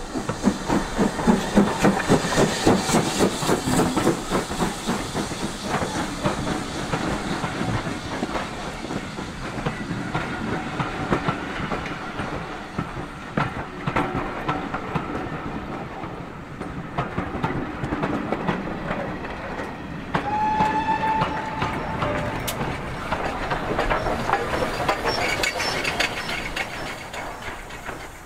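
BR Standard Class 4MT 2-6-4 tank locomotive passing close by, its exhaust beating rapidly for the first few seconds. Then its train of coaches rolls past, wheels clicking over the rail joints, with a short high squeal about twenty seconds in.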